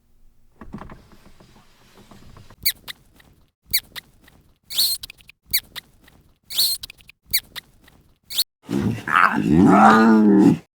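A dog giving about seven short, sharp yips, then one longer, louder call whose pitch rises and falls, cut off suddenly at the end.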